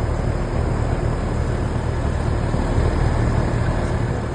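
Outdoor central air conditioner condenser units running: a steady rushing of the condenser fans over a low compressor hum.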